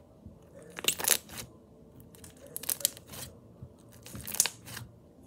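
A plastic bag filled with slime crinkling in three short bursts as it is squeezed and spread out by hand.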